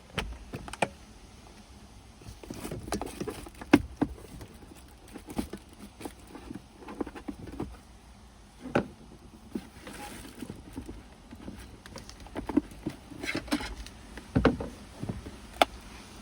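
Irregular clicks, taps and light knocks of hands handling the plastic glovebox and cabin air filter housing of a Kia Morning, with a few duller thumps among them.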